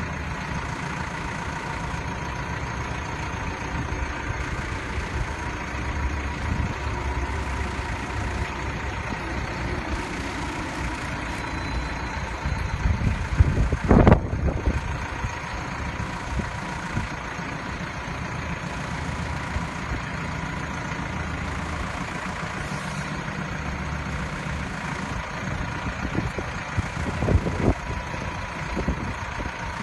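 Caterpillar 430E backhoe loader's diesel engine running steadily at idle, with a few louder knocks around the middle and again near the end.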